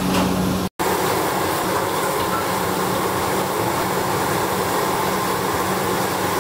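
Steady roar of a busy restaurant kitchen, with gas burners under large stock pots and electric fans running. The sound cuts out for an instant under a second in.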